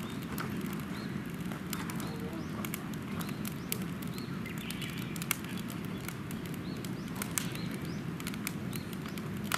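Wood fire burning in a steel oil drum, crackling and popping at irregular moments over a steady low rush, with a few faint bird chirps.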